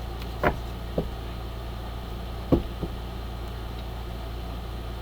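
A few short, soft knocks and taps, two close together about half a second in and two more near the middle, over a steady low hum.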